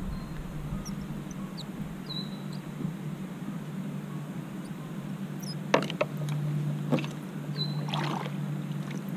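Water sounds around a plastic sit-on-top kayak on a lake, with two sharp knocks about six and seven seconds in and a patter of small splashes soon after. A few short, high bird chirps sound over it.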